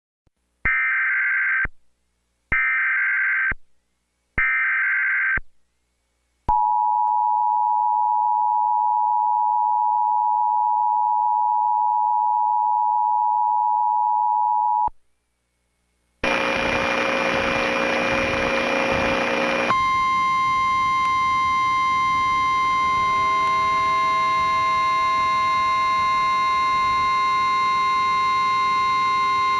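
Emergency Alert System header: three short bursts of screeching digital data tones about a second each, followed by the two-tone attention signal held for about eight seconds. After a brief silence, radio hiss comes in, and a single steady alert tone starts over it about twenty seconds in.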